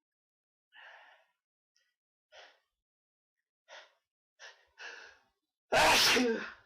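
A person's short, quickening breaths building up to a sneeze, then one loud "achoo" sneeze near the end.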